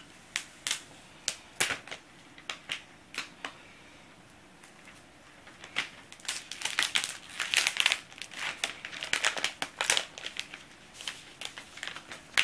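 Thin plastic wrapping crinkling and crackling as a new tablet is pulled out of it. There are a few separate crackles at first, then denser, busier crinkling from about halfway through.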